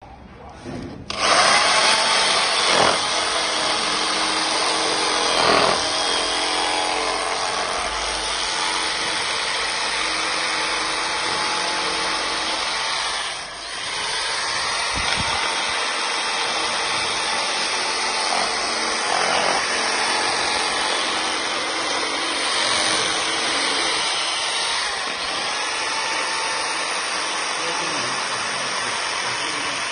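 Electric drill driving a reciprocating saw adapter, running and sawing with a steady dense buzz. It starts about a second in and dips briefly about halfway through.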